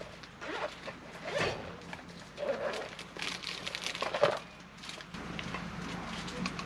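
Irregular handling noises of pop-up tent setup: fabric rustling and scraping with a few sharper clicks and knocks, the loudest a little after four seconds in.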